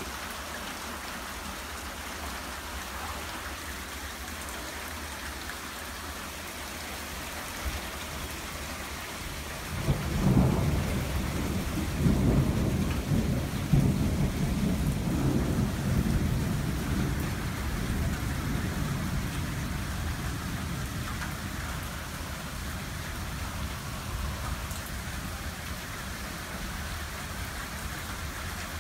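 Heavy rain falling steadily in a squall line thunderstorm. About ten seconds in, a long roll of thunder begins; it is loudest over the next few seconds and then slowly fades.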